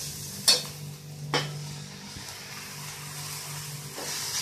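Chopped vegetables sautéing in oil in a stainless-steel kadai, stirred with a metal spoon: a steady sizzle, with two sharp clicks of the spoon against the pan within the first second and a half.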